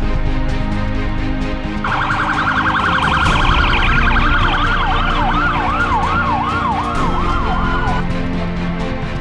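Electronic vehicle siren over background music: it starts about two seconds in as a rapid warble, changes to slower up-and-down sweeps about twice a second, and cuts off about eight seconds in.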